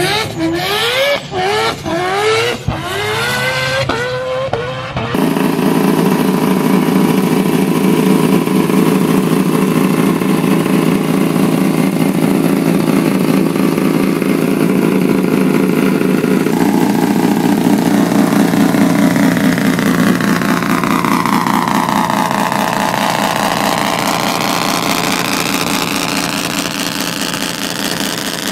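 For the first five seconds, a quick series of short rising sweeps. Then a Mazda rotary engine runs steadily at idle, its note dipping and rising slowly near the end.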